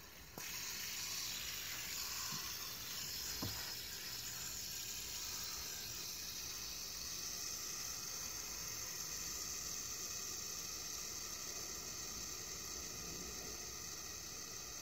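Fidget spinner's bearing spinning, a steady high whirring hiss that starts abruptly about half a second in and holds on with little change.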